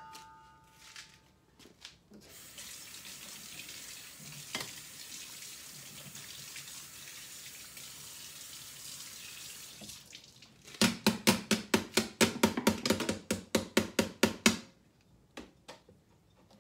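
Kitchen faucet running into the sink for several seconds, with a small clink at the start. Then a quick, even run of about twenty sharp taps, about five a second, lasting nearly four seconds.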